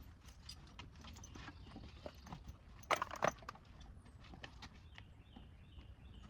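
A horse shifting and stepping on its hooves, with scattered clicks and knocks; two sharper knocks come about three seconds in.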